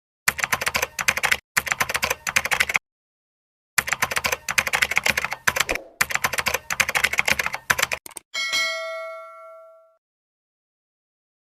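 Typewriter sound effect: rapid clacking keystrokes in three runs with short breaks, then a single bell ding about eight seconds in that rings out and fades.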